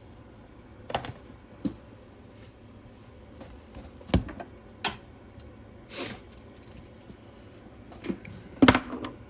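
Scattered light clicks and taps of small tools and parts being handled on a workbench, several separate ones, the loudest near the end.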